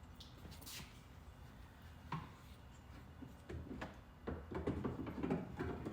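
Scattered light clicks and knocks of hand work on a car door handle assembly and its plastic trim, becoming a busier run of clattering and rustling in the second half.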